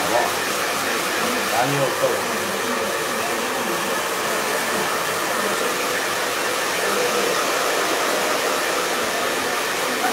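Handheld hair dryer running steadily as short hair is blown dry, with faint voices briefly heard about two seconds in.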